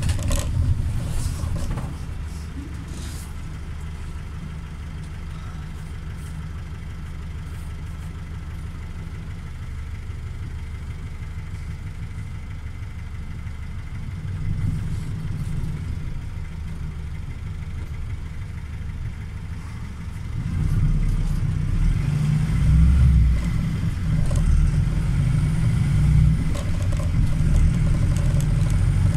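Volksbus 9-160 diesel bus engine heard from inside the cabin: a low, steady rumble that stays quieter for most of the time, then grows clearly louder about two-thirds of the way in as the bus accelerates.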